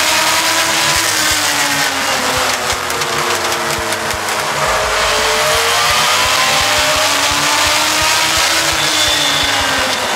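On-board sound of a U.S. Legend race car's Yamaha four-cylinder motorcycle engine at racing speed, over steady wind rush. The engine pitch falls over the first few seconds as the driver lifts, climbs again about halfway through as he accelerates, and drops back near the end.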